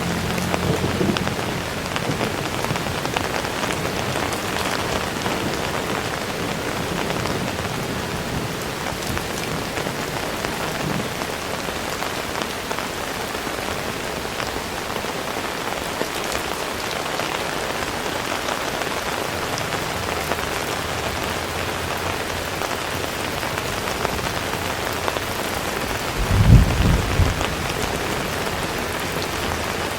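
Heavy rain falling steadily, an even hiss of drops on surfaces. Near the end comes a brief low rumble, the loudest moment.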